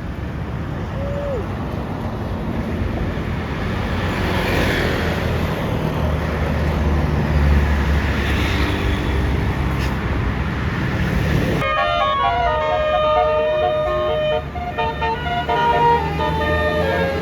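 A bus engine rumbling past with traffic noise, then about two-thirds of the way in a basuri multi-tone bus horn starts playing a quick 'telolet' melody of short changing notes.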